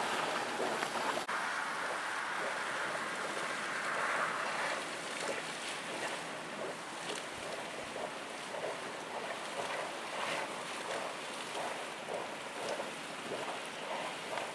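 Wind on the microphone and the rush of water on an open ferry deck crossing a fjord: a steady, even hiss with no clear engine tone standing out, briefly dipping about a second in.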